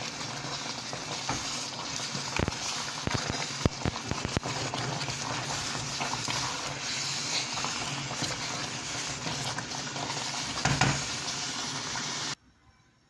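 Food sizzling in a cooking pot while a utensil knocks and scrapes against it as it is stirred; the sound cuts off suddenly near the end.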